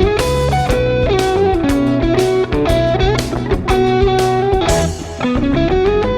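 Fake Fender electric guitar playing a lead melody over a backing track of drums and bass, with notes that slide in pitch, one rising glide coming near the end.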